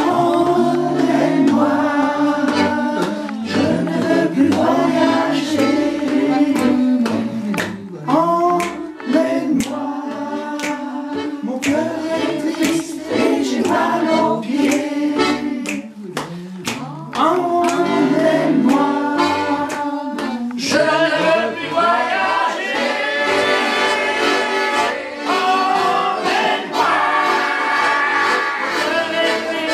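A group of voices singing a song together, with hand claps through the middle of it.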